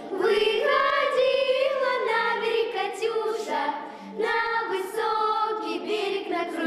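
A group of children singing a Soviet wartime song together, holding long notes, with a brief break between phrases about four seconds in.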